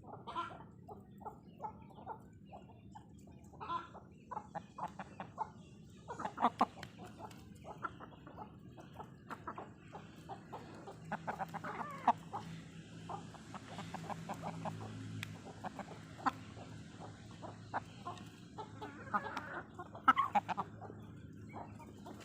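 Domestic chickens clucking in a run of short, repeated calls, with louder bunches of clucks about six seconds in and again near the end.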